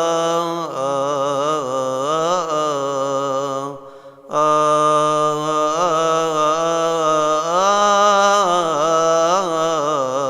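Solo male voice chanting a Coptic Orthodox hymn in long, wavering melismatic lines on drawn-out vowels, with a short breath pause about four seconds in.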